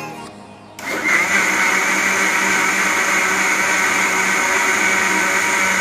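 Electric mixer grinder with a steel jar blending cold coffee: the motor switches on about a second in and runs steadily at full speed, loud, with a high whine over the churning.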